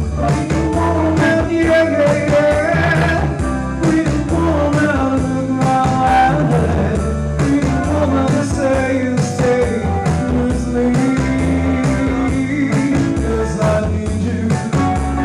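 A man sings a country-rock song live while playing a Stratocaster-style electric guitar, with bass and a steady beat behind him.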